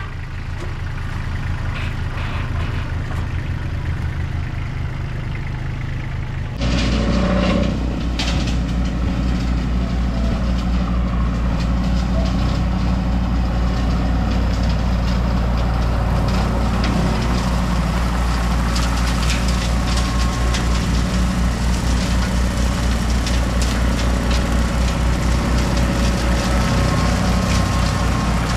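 Compact tractor engine running steadily with a low, even pulse. About six and a half seconds in it gets suddenly louder and stays there while the tractor pulls its spinning bush hog (rotary cutter) along, mowing.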